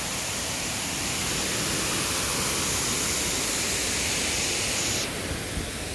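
Waterfall rushing in a steady roar of water. About five seconds in the sound cuts to a slightly quieter, duller rush.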